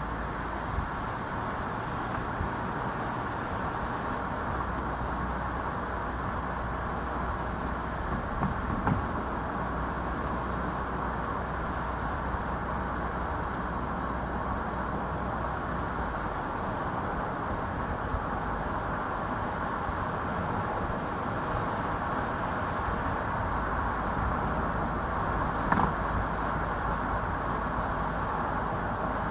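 A car driving along a road, with a steady rumble of tyre and engine noise. There are a few brief knocks about nine seconds in and again near the end, like bumps in the road surface.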